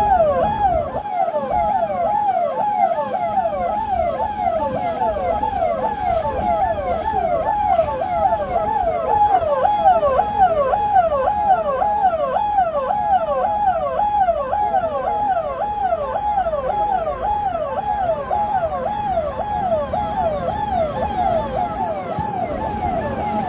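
Electronic police siren sounding in a fast yelp, its pitch sweeping up and down about twice a second without a break, over a low background rumble.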